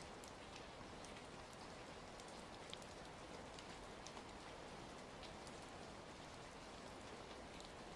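Steady rain falling, a quiet even hiss, with scattered sharp pops and ticks from a crackling fire.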